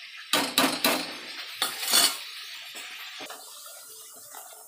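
A steel spoon clinks and scrapes against the side of a metal cooking pot as a thick curry is stirred, with a run of sharp knocks in the first two seconds. After that there is only the faint bubbling of the curry simmering.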